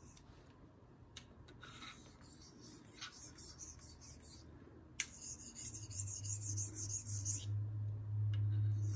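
Faint, soft scraping strokes of an Elmax steel knife edge drawn across the fine side of a wet jasper natural whetstone, the quiet sound of fine honing. A low steady hum comes in a little past halfway.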